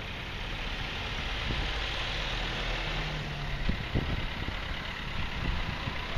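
Vans and a car driving past on a street: engine and tyre noise that swells as a small van passes close, with two brief knocks about four seconds in.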